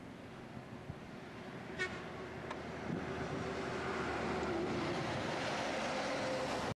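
Heavy diesel lorry traffic: a short horn toot about two seconds in, then a Scania truck passes close, its engine and tyre noise swelling loud and staying steady.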